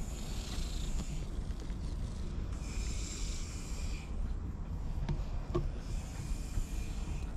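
Black-and-white cat purring while it is stroked, a low steady rumble close to the microphone.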